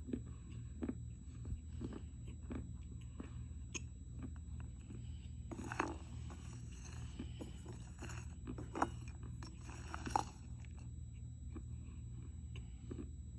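Dry clay being bitten and chewed close to the microphone: irregular sharp crunches, the loudest about six, nine and ten seconds in, over a steady low hum.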